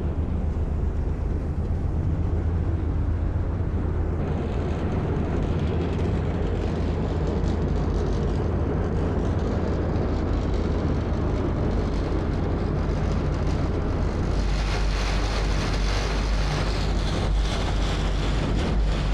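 Ferry's engines running with a steady low drone. A hiss joins about three-quarters of the way through.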